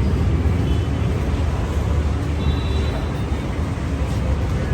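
Steady low rumble of road traffic, with a few faint high tones over it.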